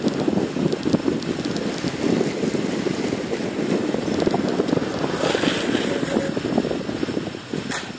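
Longboard wheels rolling fast over rough asphalt, a continuous gritty rumble, with some wind buffeting the microphone. A little after five seconds in, a scraping hiss lasting about a second rises over the rumble, and a short sharp scrape comes just before the end.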